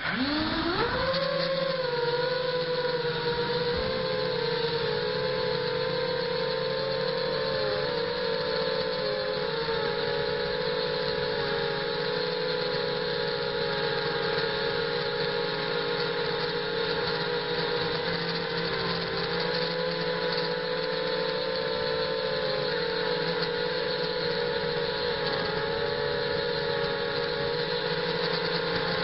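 ZMR 250 quadcopter's four brushless motors and propellers spinning up from rest with a quick rising whine, then holding a steady whine in flight, the pitch wavering slightly with throttle. Heard close, from the camera mounted on the quadcopter.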